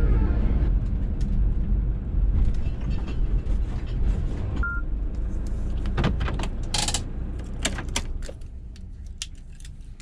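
Motorhome running on the road, a steady low rumble that fades down over the last few seconds, with scattered clicks and rattles and one short beep a little before halfway.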